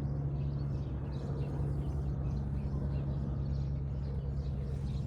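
Steady low mechanical hum holding one pitch throughout, with faint bird chirps.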